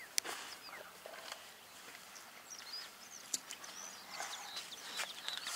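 Small birds chirping and calling around the water, many short high chirps overlapping. A few sharp clicks cut in, the loudest just after the start.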